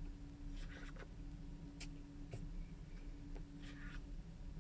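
Faint, scattered clicks and light scraping of a plastic spoon in a paper McFlurry cup as melted soft-serve is stirred and scooped, over a steady low hum.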